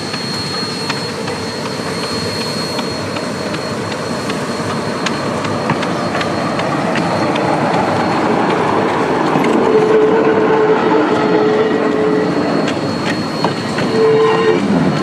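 Vulcan RM 50 diesel railcar drawing closer and rolling slowly past, its running noise growing louder, with wheels clicking irregularly over the rail joints and a thin steady high whine.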